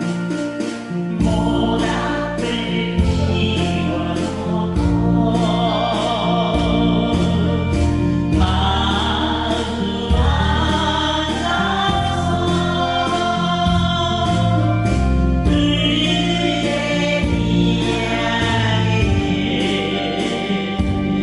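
A song with voices singing together over a full instrumental backing; the bass comes in about a second in.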